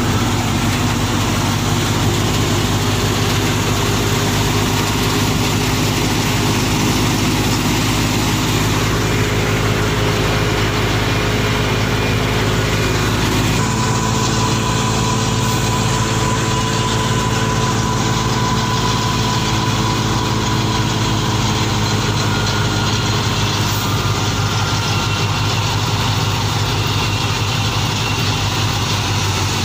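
Fiat 480 tractor's diesel engine running steadily, its note shifting slightly about halfway through.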